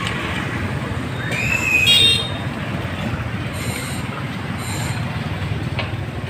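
Steady street-traffic rumble from passing vehicles, with a brief high-pitched squeal about a second and a half in.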